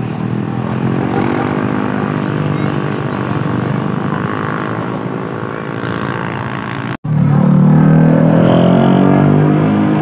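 Motor vehicle engines running close by, the pitch slowly rising and falling as they pull away. The sound cuts out abruptly about seven seconds in, then a louder engine revs up and falls back.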